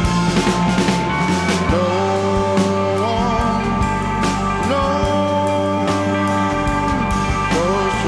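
Rock music with a full drum kit and a held melody line that slides and bends in pitch.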